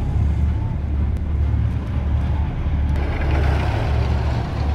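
A tracked self-propelled gun's diesel engine running with a steady low rumble, joined by a rushing hiss about three seconds in.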